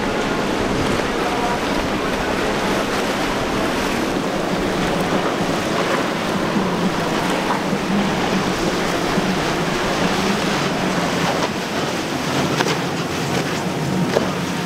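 Outboard-powered center-console boats running through the inlet at speed: steady engine noise blended with the rush of hull spray and wake.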